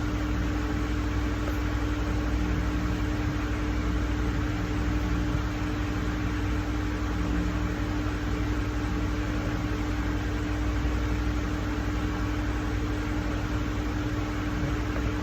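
Steady motor hum and hiss with one constant low tone, even and unchanging.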